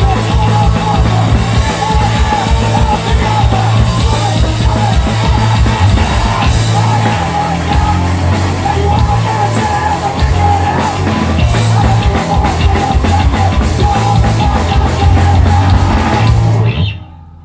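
Hardcore punk band playing live: distorted full-band music with fast, dense drumming that stops abruptly near the end as the song finishes.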